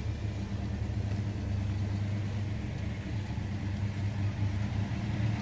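Classic car engine running at a low idle as the car creeps forward slowly, a steady low rumble.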